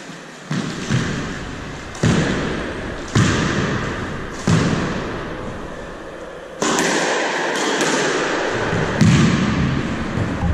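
Squash ball knocking off rackets and the court walls, each hit a sharp smack that rings briefly in the enclosed court, coming about a second apart in the first half. From the middle on there is a continuous clatter with a louder knock near the end.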